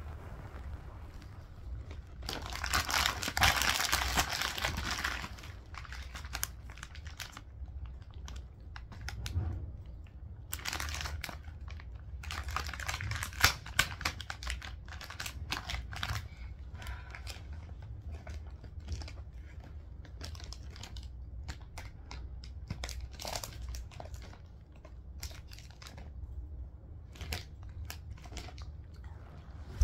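A crinkly plastic snack packet being handled and crumpled in irregular bursts of crackling, the loudest burst a few seconds in and another around the middle.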